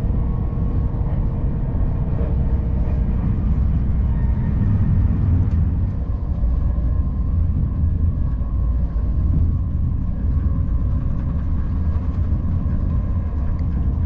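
Interior running noise of a Deutsche Bahn ICE 1 high-speed train at speed, heard inside the passenger car: a steady low rumble from the wheels and running gear with a faint steady hum over it.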